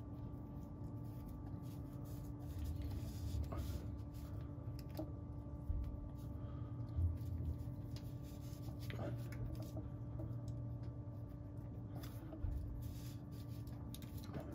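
Faint rustling and light clicks of thin wire being wound tightly around a wet exhaust-repair bandage on an exhaust pipe, a few soft knocks among them, over a steady low hum.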